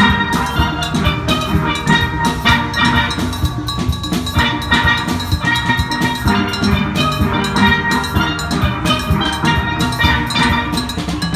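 Steel band playing live: steelpans ringing out a rhythmic melody and chords over drums and percussion.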